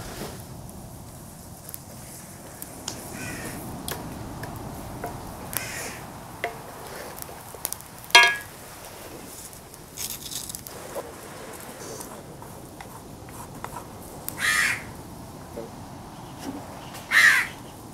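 Crows cawing several times, with single harsh caws about eight seconds in, then again near the end, over a low, steady sizzle of chilli paste frying in oil in an iron wok.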